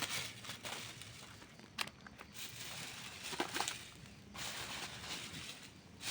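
Wood campfire burning and crackling, with sharp pops about two seconds in and a few more around three and a half seconds.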